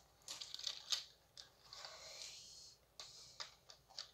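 Faint, scattered clicks and rattles of plastic marble-run track pieces being handled and fitted together.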